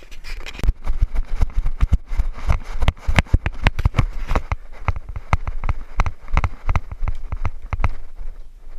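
Quick, uneven footsteps, as of someone running, several a second, over a haze of movement noise that thins out about halfway through.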